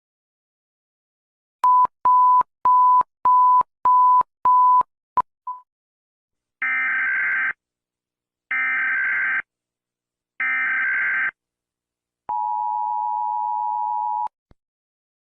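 Emergency Alert System broadcast alert tones. First comes a run of short, evenly spaced beeps at one pitch. Then come three harsh, buzzy data bursts about a second long, a second apart, like a SAME header. Last comes a steady two-tone attention signal held for about two seconds before cutting off.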